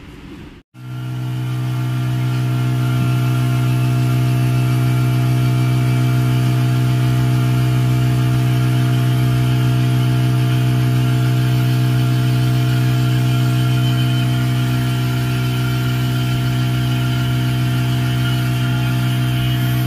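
Dental suction unit's motor running with a loud, steady hum. It starts abruptly about a second in and holds unchanged throughout.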